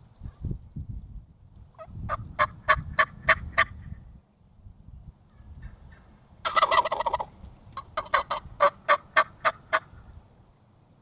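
Wild turkeys calling: a run of about seven yelps, then a single rattling gobble about six and a half seconds in, followed by another run of about ten yelps.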